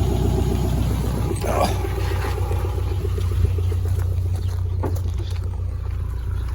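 Subaru Impreza's flat-four engine idling through a newly fitted aftermarket exhaust, a steady low rumble with an even pulse. The exhaust has an unwelded slip joint near the front where the owners suspect a leak.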